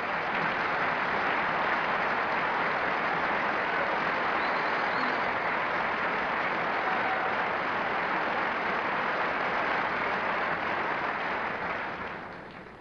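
Large audience applauding: a dense, steady wash of clapping that swells in at the start and dies away near the end.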